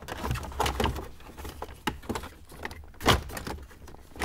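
Plastic dash trim panel handled and pressed into place around a Jeep Wrangler JK's steering column: a run of light clicks and knocks, with a louder knock about three seconds in.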